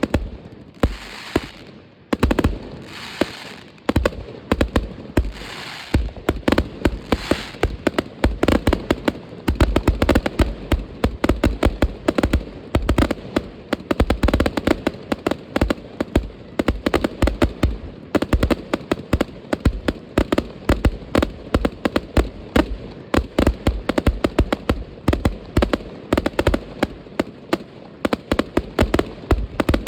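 Fireworks and firecrackers going off in a dense, continuous barrage of sharp bangs, many per second. A few longer hissing bursts stand out in the first few seconds.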